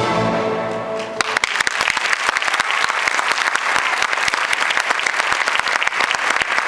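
Orchestral music ends about a second in, and an audience applauds with dense clapping from many hands for the rest of the time.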